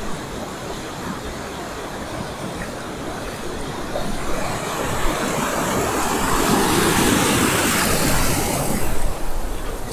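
Ocean surf: a steady wash of breaking waves, with whitewater rushing in over the shallows and growing louder from about four seconds in, loudest near the end.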